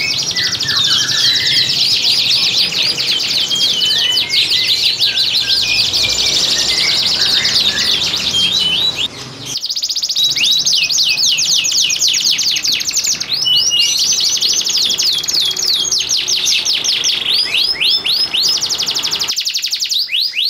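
Domestic canaries in full song: a continuous, high-pitched stream of fast rolling trills and rapidly repeated sweeping notes. About halfway through the song changes to another bird's, with runs of sharp repeated down-slurred notes and a few very fast buzzy trills. It is the loud breeding-condition song used to spur other canaries to sing and hens to come into breeding condition.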